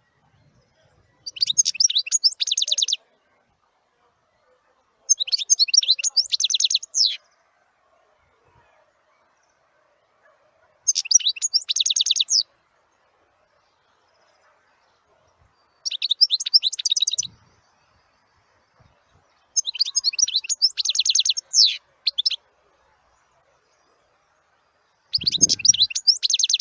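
A small songbird singing: six short, rapidly trilled high-pitched phrases, each a second or two long, separated by pauses of a few seconds.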